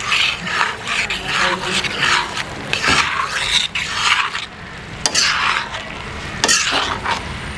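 A utensil stirring and scraping a spiced mixture of boiled potatoes and white peas around a pan, in repeated strokes about two to three a second, with a light sizzle from the hot pan.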